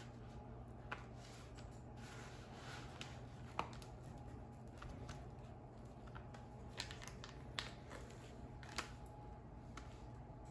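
Table knife spreading cream cheese on a flour tortilla: soft scraping with scattered light clicks and taps, one sharper click a few seconds in, over a faint steady hum.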